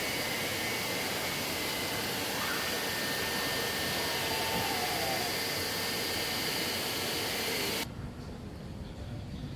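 Steady rushing noise with faint high tones and a brief gliding call partway through; near the end it cuts off abruptly to a quieter, lower rumble.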